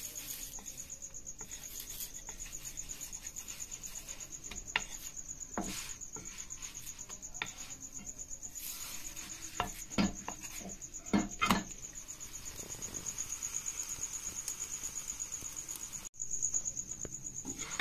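A cricket chirping in a steady, pulsing high trill. A few sharp knocks and scrapes of a wooden spatula against a nonstick frying pan sound while a naan is turned over.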